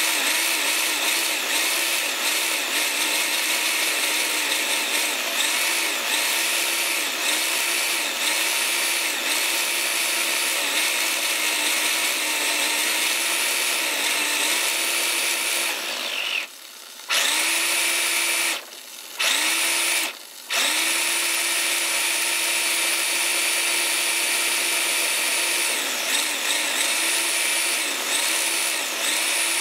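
Tamiya RS540 Sport Tuned brushed electric motor running with no load through the RC car's ESC and drivetrain: a steady high whine that rises and dips a little in speed. It cuts out briefly three times a little past halfway and spins straight back up.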